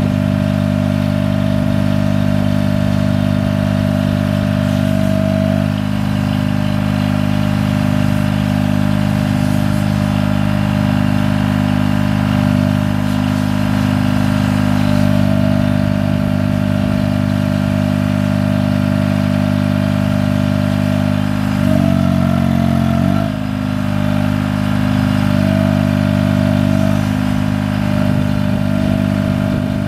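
Engine running steadily to power a hydraulic crane as it is worked. Its note shifts slightly a few times and changes pitch briefly about two thirds of the way through.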